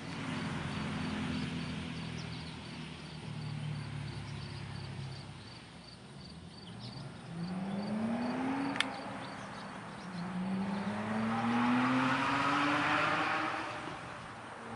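A motor vehicle's engine running, its pitch rising twice as it accelerates: briefly about eight seconds in, then longer and loudest near the end. A single sharp click a little before nine seconds in.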